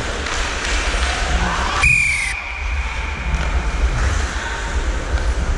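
An ice hockey referee's whistle blown once, a high blast about two seconds in that falls slightly and fades over the next two seconds. Under it is steady rink noise with a low rumble.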